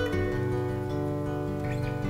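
Two acoustic guitars playing together, picking and strumming chords that ring on, with a new chord struck about half a second in.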